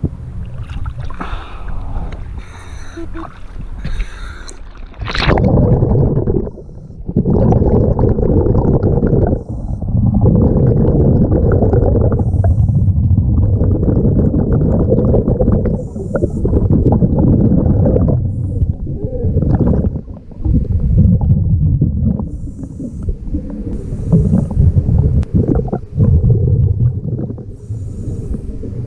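Scuba diver breathing through a regulator underwater: from about five seconds in, long rumbling bursts of exhaled bubbles come every few seconds, with a short high hiss of the regulator on the in-breath between them.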